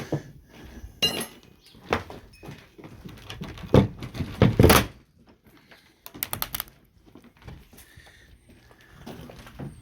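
Wooden shed being taken apart by hand: irregular knocks and thuds of timber boards, the loudest a cluster about four seconds in, with a quick rattle of knocks around six seconds.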